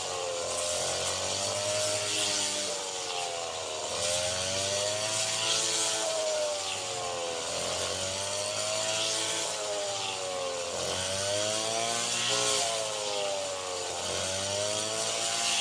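Engine of a rice harvesting machine running, its pitch dipping and rising again every three to four seconds, with a steady hiss behind it.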